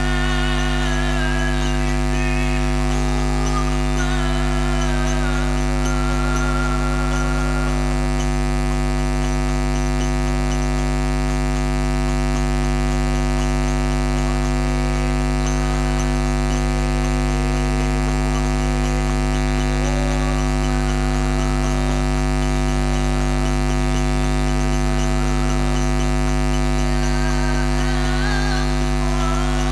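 Loud, steady electrical mains hum with a stack of overtones on a sound-system mixer feed. Under it runs a faint, wavering melodic line, and there is no drumming.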